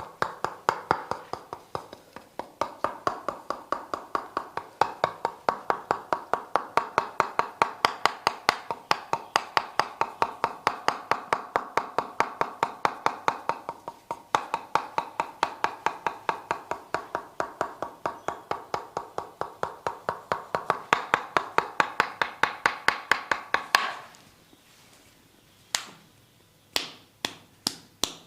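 Percussive massage: rapid, rhythmic strikes on the body at several a second, each with a hollow ring. They stop about 24 seconds in, and a few single sharp taps follow.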